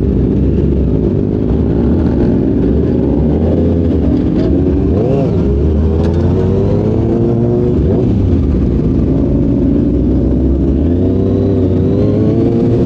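Kawasaki ZX6R's inline-four engine running through an SC Project exhaust while ridden, its revs rising and falling several times.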